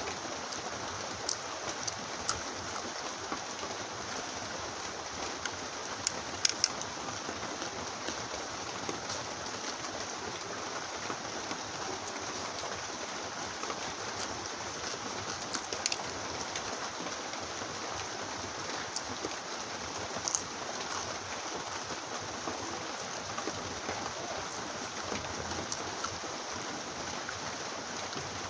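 Steady rain, a constant even hiss, with a few sharp clicks scattered through it.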